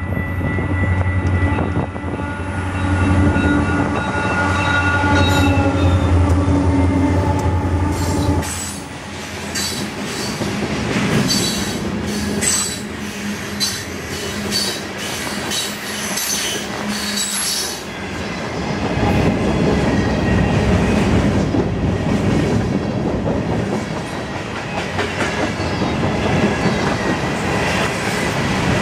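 Wisconsin Southern freight train passing at speed. For the first eight seconds or so the diesel locomotives' engines hum loudly. After that the freight cars roll by with rapid wheel clicks and rumble over the rails.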